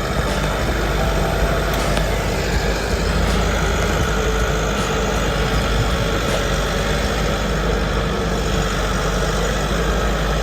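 Engine of a timber-handling forestry machine running steadily under load, a continuous low mechanical drone with a few faint knocks.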